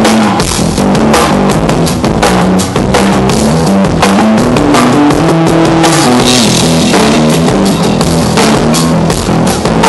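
Live rock band playing an instrumental passage at a sound check: a drum kit keeping a steady beat over a moving bass line, with guitar.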